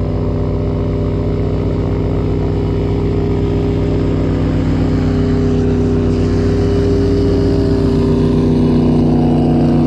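A boat's outboard motor running steadily under way, one constant engine note that grows slightly louder toward the end.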